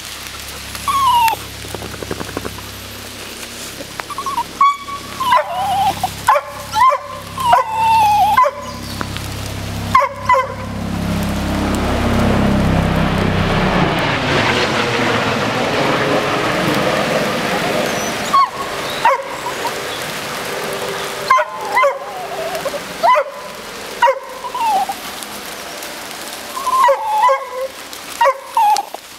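A dog giving short, high yips and whines again and again in clusters, each call bending in pitch. For several seconds in the middle the calls give way to a steady rushing noise.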